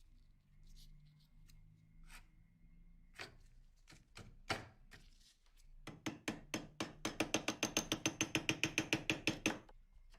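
Workshop tapping during restoration of a Colt M1911 pistol: a few scattered clicks and knocks, then about six seconds in a quick, even run of sharp ringing taps, about seven a second, for nearly four seconds.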